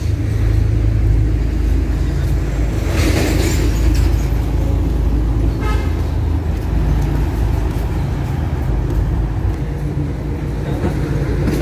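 Steady low rumble of engines in road traffic, with a brief horn toot about six seconds in.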